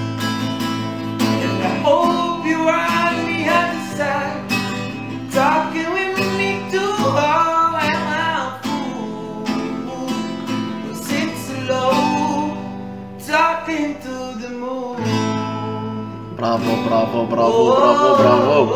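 A young man singing a melody in phrases to his own strummed acoustic guitar.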